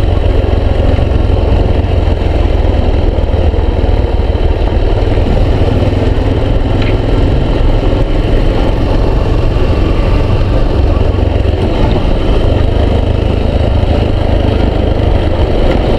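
Yamaha XTZ 250 Lander's single-cylinder four-stroke engine running steadily under way, mixed with heavy wind and road rumble on the onboard camera's microphone.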